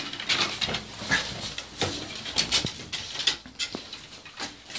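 Puppies moving about in a straw-bedded pen: irregular rustling, scratching and small knocks, close to the microphone.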